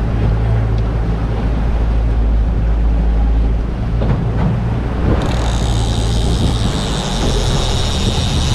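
Game-fishing boat's motor running under way, a steady low hum mixed with wind and water noise. About five seconds in a steady high whine joins it and keeps going.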